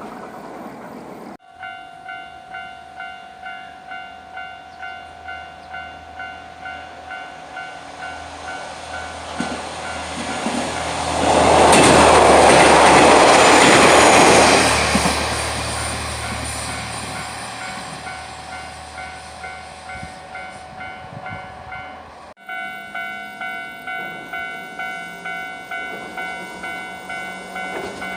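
Level-crossing warning bell ringing in a steady, evenly repeating ding while a Hiroden tram rumbles up and runs over the crossing, the tram's passing loudest around the middle. The sound cuts abruptly twice, near the start and about three-quarters of the way through, with the bell still ringing after each cut.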